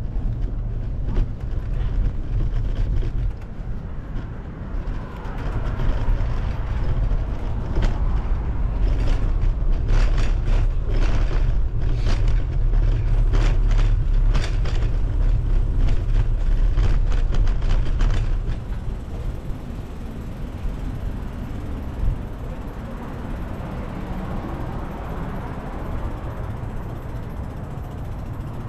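Wind noise on the microphone and tyre and road noise from a moving bicycle, with a run of sharp clicks and rattles in the middle. It gets quieter after about 18 seconds.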